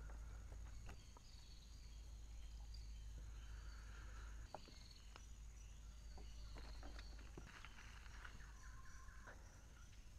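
Faint natural ambience: a steady high-pitched insect drone with scattered faint chirps and a few soft clicks.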